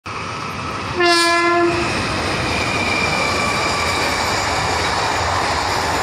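Indian Railways train horn sounding one short blast about a second in, over the steady rumble and clatter of a passing train. A thin high tone lingers for a few seconds after the blast.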